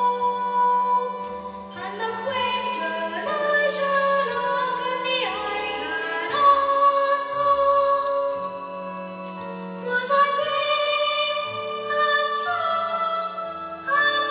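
Music with a singing voice, moving through long held notes.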